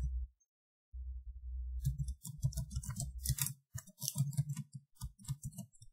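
Computer keyboard keys being typed: a quick, irregular run of clicks from about two seconds in to near the end, after a brief low rumble.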